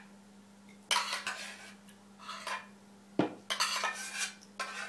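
Metal spoon scraping thick sauce from a stainless steel pot in several short strokes, with one sharp clink of the spoon a little past the middle.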